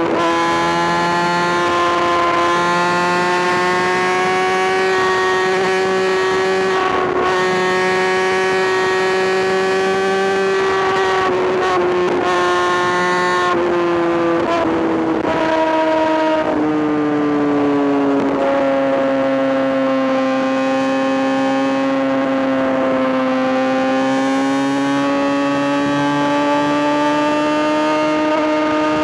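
Kawasaki ZX-6R inline-four engine held at high revs with a high, steady note. The pitch creeps up, drops in a few steps about halfway through, then holds lower and edges back up near the end.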